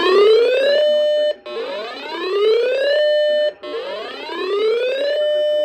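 Emergency alert tone on a broadcast alert relay: a whooping tone that rises in pitch over about a second and a half, holds briefly and cuts off. It repeats about every two seconds, three whoops in all with a fourth starting at the end.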